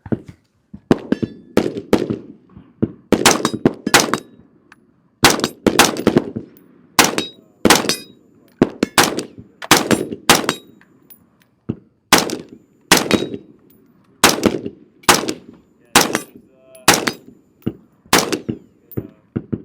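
Steady gunfire: several dozen shots through the whole stretch, often in quick pairs and triples with short gaps between groups, each shot followed by a brief echo.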